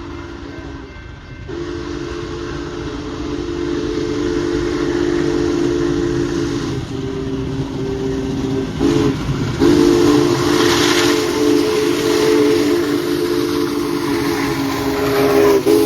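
Union Pacific Big Boy 4014's steam whistle sounding a chord of several notes in long blasts with short breaks, with a hiss of steam underneath.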